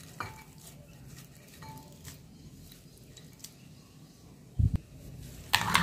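Sprouted moong beans tipped by hand from one glass bowl into another holding yogurt, with a few faint light clicks. A dull thump comes a little after four seconds in. Near the end a louder clatter of a spoon stirring in the glass bowl starts.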